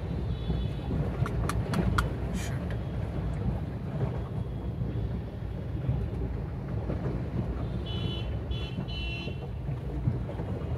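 Steady low rumble inside a Maruti Suzuki Swift Dezire's cabin as it creeps through floodwater, with a few sharp clicks about two seconds in. Three short high-pitched beeps sound from the traffic about eight seconds in.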